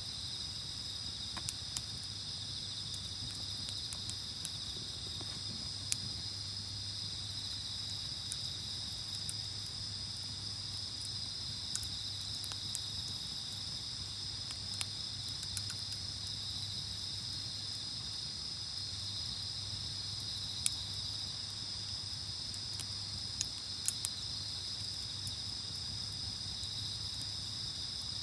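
Insects chirring in a steady high drone, with a campfire crackling in scattered sharp pops over it.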